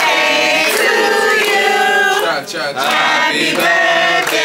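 A group of voices, men among them, singing a birthday song together in long, held notes.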